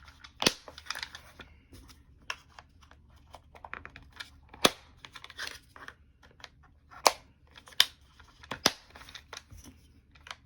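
Hard plastic parts of a Magpul PMAG D-60 drum magazine being handled and snapped together as its retaining clips are fitted back on: scraping and rattling with several sharp clicks, about five of them standing out.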